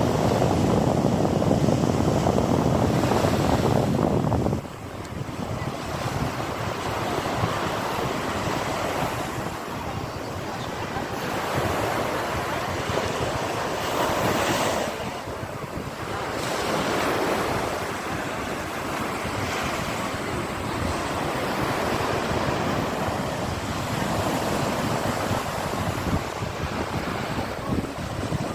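Sea waves breaking and washing on a shore: a loud steady rush that drops abruptly about four and a half seconds in, then swells and fades with each wave.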